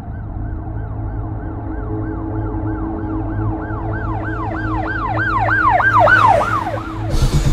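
Electronic siren-like warble: quick sweeps that rise and fall in pitch, about three a second, over a steady low drone. It grows louder, then fades out about seven seconds in, and a burst of noise starts just after.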